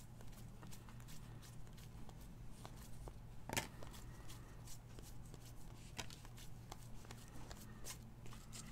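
A stack of trading cards being flipped through by hand: faint, irregular clicks and slides of card stock, one sharper snap about three and a half seconds in, over a faint low hum.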